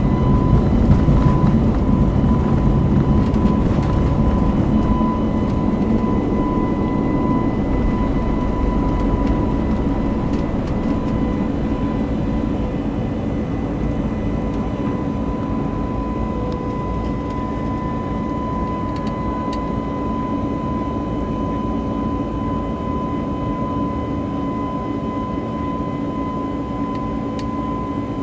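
Airbus A321 jet engines and airflow heard inside the passenger cabin: a steady low rush with a constant whine, easing slightly in loudness over the first half.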